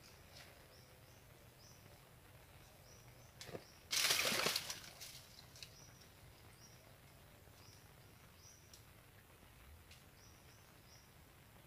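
Quiet outdoor ambience with a faint high chirp repeating in short runs of two or three. About four seconds in, one brief loud burst of rustling noise.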